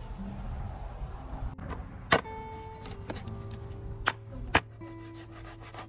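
A cleaver chopping through a whole fish onto a wooden cutting board: three sharp chops, about two, four and four and a half seconds in, over soft acoustic guitar music.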